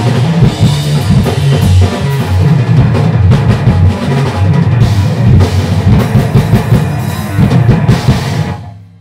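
Math rock band playing loud, with the drum kit and cymbals to the fore. The song ends near the end, stopping sharply with a short ring-out.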